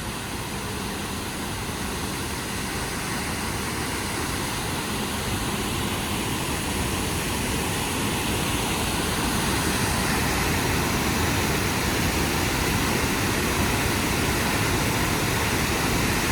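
Waterfall rushing steadily, a dense roar of falling water that slowly grows louder.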